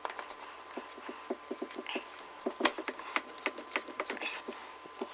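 Light, irregular clicks and taps of plastic filter parts being handled as the filter housing with its new cartridge is fitted back into place.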